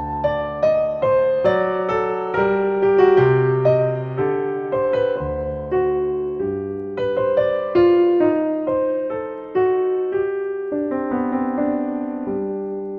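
Solo piano music: single notes and chords struck about every half second, each ringing and fading away.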